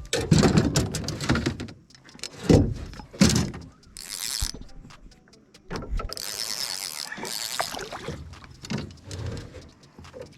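Fishing reel being cranked as a largemouth bass is reeled in, with several heavy knocks in the first few seconds and two bursts of hiss in the middle.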